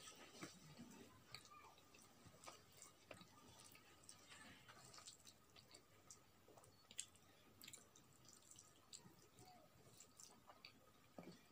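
Faint chewing with scattered wet mouth clicks and smacks from a person eating rice and vegetables by hand.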